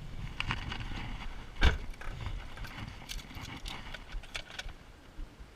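Light clicks and rattles of fishing tackle being handled, with one sharp knock about a second and a half in, over low wind rumble.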